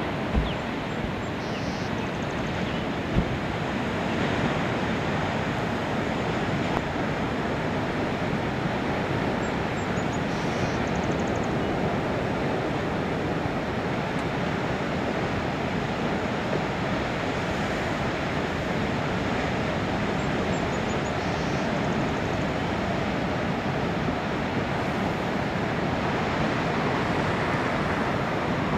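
Steady rushing noise of ocean surf breaking in the distance, with wind on the microphone.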